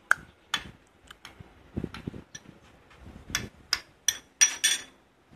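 Metal spoon clinking and scraping against a ceramic bowl while cutting into boiled duck egg: a string of sharp, irregular taps, the loudest cluster near the end.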